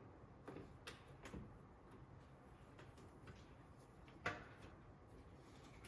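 Near silence with a few faint clicks and one sharper click about four seconds in.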